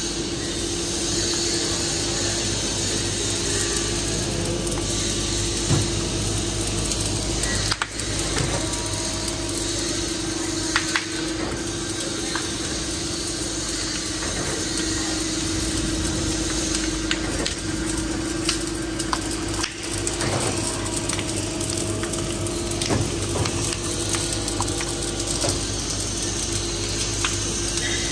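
Two-roll rubber mixing mill with an automatic stock blender running, a steady machine hum with a constant tone. Occasional clicks and knocks from the mechanism sound over it.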